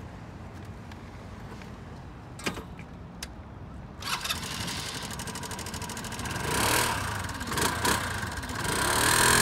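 2013 SYM HD 200 EVO scooter's single-cylinder engine starting after a couple of clicks, idling, revved twice, then pulling away under throttle near the end with a rising pitch.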